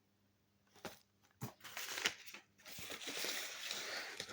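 Packaging rustling and crinkling as DVD cases are handled and pulled from a parcel, starting about a second in with a couple of light clicks.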